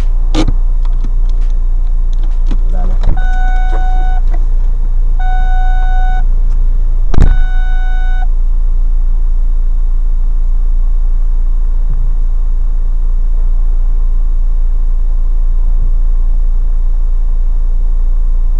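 Steady low rumble picked up by the car's dashcam, with three one-second electronic warning beeps a second apart between about three and eight seconds in. Sharp knocks sound near the start and about seven seconds in, the second the loudest.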